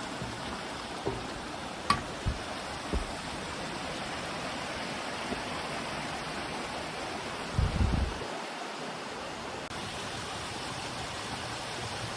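Steady rush of a mountain stream, a continuous even hiss of running water, with a few dull low thumps: single knocks about two and three seconds in, and a louder cluster about two-thirds of the way through.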